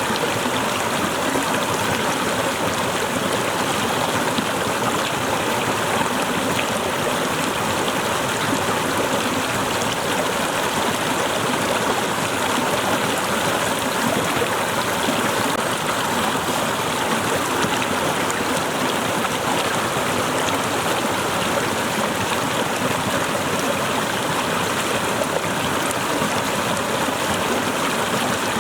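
Waterfall: a steady, unbroken rush of cascading water at an even level.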